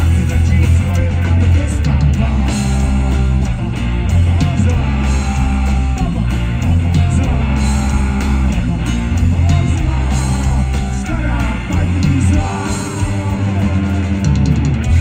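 Punk rock band playing live: electric guitars, bass guitar and drums, with a man singing.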